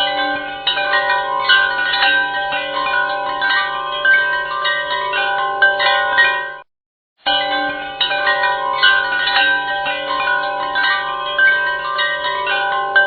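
Chimes ringing in a dense run of overlapping struck metal tones. The ringing cuts off about six and a half seconds in and starts again after a brief silence.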